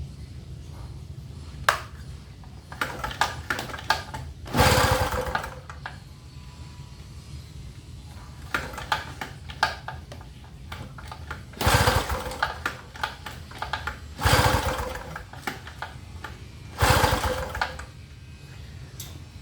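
Small gasoline inverter generator being pull-started four times: each pull gives about a second of the engine cranking and firing, and it does not keep running. The mechanic blames stale fuel and is still adjusting the fuel mixture. Light clicks of handling come between the pulls.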